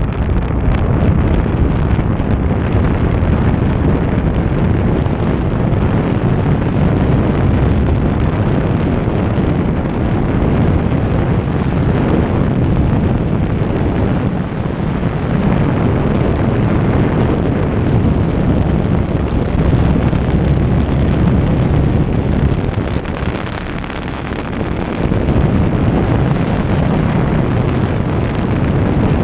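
Jet boat under way: steady, loud engine and water noise with wind buffeting the microphone, easing briefly about three-quarters of the way through.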